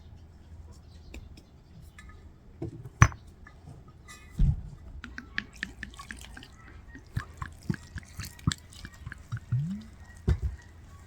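Kitchen work with water: a couple of heavier knocks and many small clicks and taps, with dripping and splashing water.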